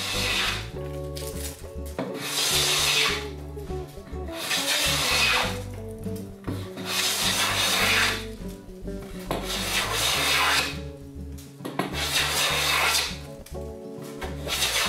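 Restored Victor by Stanley No. 1104 hand plane taking repeated strokes along a board, its blade shearing wood in a regular rhythm of about seven passes, one every two seconds or so.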